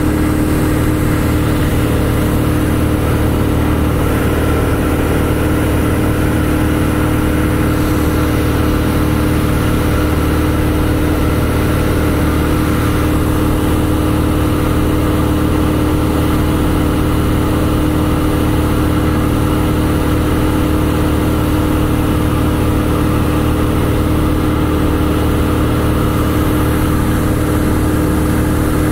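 Cessna 172's single piston engine and propeller running steadily in flight, with a constant hum heard from inside the cabin.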